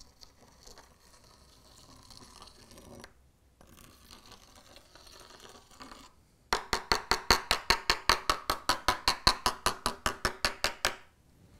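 Metal teaspoon working fine ballast grit along model railway track: faint gritty scraping for about six seconds, then a run of rapid, even clicks, about eight a second, as the spoon is worked along the track for some four seconds before stopping abruptly.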